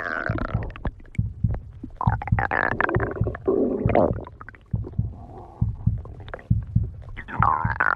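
Stomach growling: long gurgling rumbles that bend up and down in pitch over a low, uneven throbbing, swelling at the start, again about two to four seconds in, and near the end.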